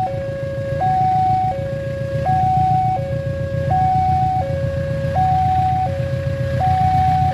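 Railway level-crossing warning alarm sounding a steady high-low two-tone chime, switching tone about every 0.7 seconds, over a low continuous rumble.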